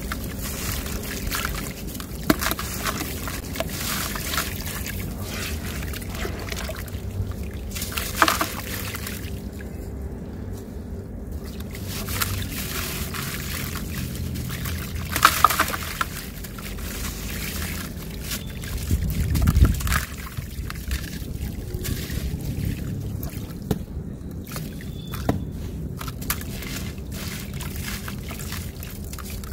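Wet, gritty sandy clump crumbled by hand over a bucket of water: sand grains and small lumps trickle and splash into the water with a steady crackle. There are a few louder moments, with a heavier, deeper splash about two-thirds of the way through.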